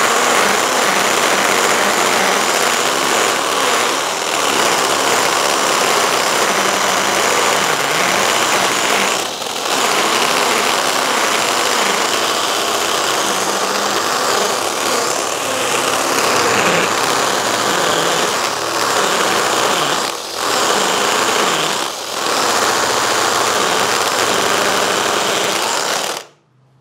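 Mollar MLR-CID20500-U cordless impact drill, set to speed 2, boring a 20 mm masonry bit into a masonry block, running continuously under heavy load with its motor pitch wavering. The sound dips briefly three times and stops just before the end.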